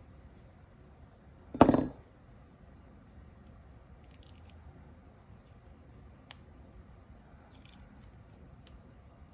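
A metal-tipped nail tool clatters down onto the desk about one and a half seconds in, with a brief metallic ring. Faint small clicks and rustles follow as liquid latex is peeled from around the nail.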